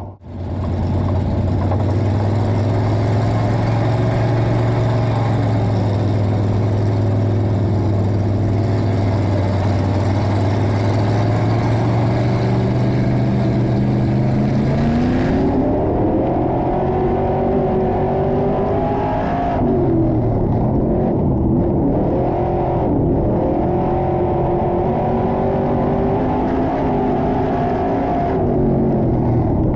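IMCA stock car's V8 engine, heard from inside the cockpit. It holds a steady, low note for about fifteen seconds, then revs up, its pitch rising and falling as the throttle opens and lifts.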